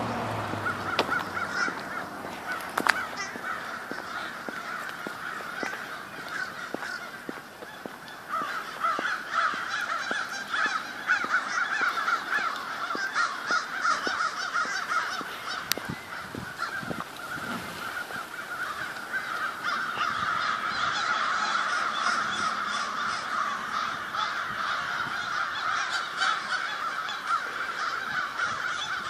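A large flock of crows cawing continuously, many calls overlapping into a dense chorus that grows louder about eight seconds in.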